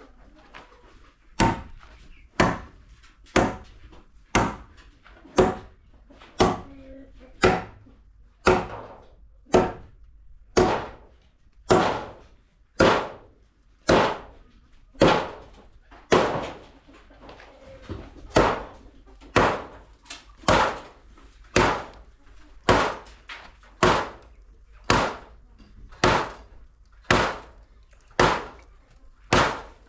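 A tool striking timber over and over in a steady rhythm, about one blow a second, each blow sharp with a short ring.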